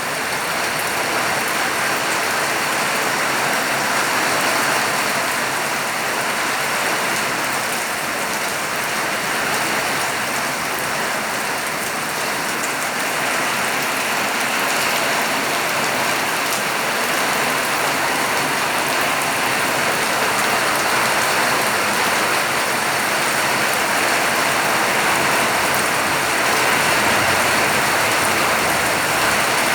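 Steady rain falling, an even unbroken hiss that holds at the same strength throughout.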